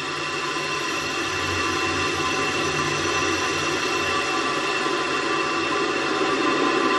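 Steady rushing noise with a fixed whine of several tones, recorded on board a Space Shuttle solid rocket booster as it falls after separation. It grows slowly louder.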